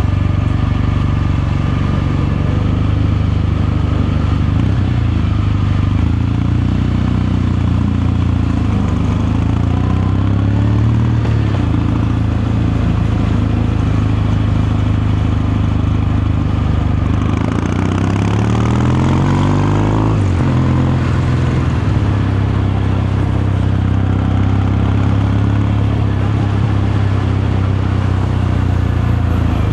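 Kawasaki Meguro K3's air-cooled 773 cc parallel-twin engine and exhaust, heard while the bike is ridden, running steadily. About seventeen seconds in, the engine revs rise for about three seconds as it accelerates, then drop suddenly as the throttle closes or the gear changes.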